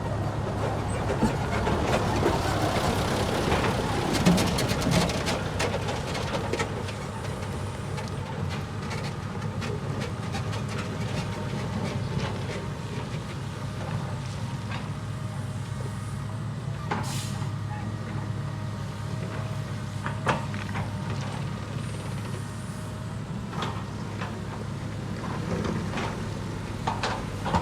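A heavy diesel construction machine's engine running steadily, with scattered sharp metallic clanks and knocks over it.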